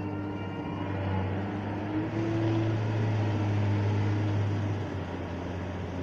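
Wheel loader's diesel engine running as the machine drives with a loaded bucket, a steady low hum that grows louder about two seconds in and eases off near the end.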